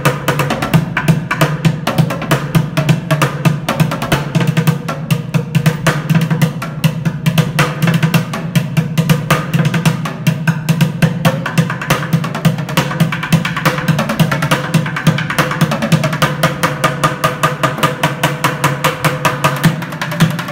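Bucket drumming: drumsticks striking upturned plastic buckets in fast, continuous rolls of sharp hits over a steady low tone from the bucket bodies.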